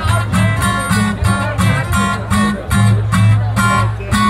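Live band music: an acoustic guitar strummed in a steady rhythm over a heavy, pulsing bass line.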